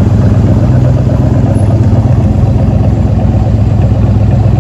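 1973 Corvette's 454 big-block V8 running loud and steady at low speed through its factory side exhaust as the car rolls slowly along.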